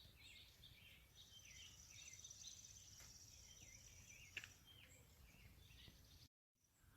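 Faint house finch chirps: short down-slurred calls repeated several times a second. A steady high-pitched trill runs alongside them from about a second in to about four seconds in.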